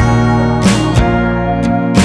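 Background music led by a strummed guitar, with a steady beat.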